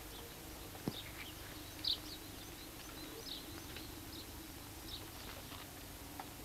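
Faint, scattered bird chirps over a low, steady hum, with a faint click about a second in.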